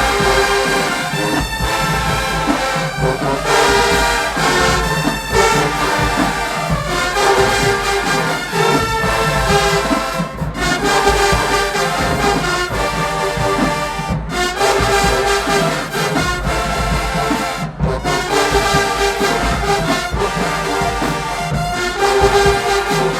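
College marching band playing loud and full, led by massed brass: trombones and trumpets. The band cuts off sharply for an instant a few times.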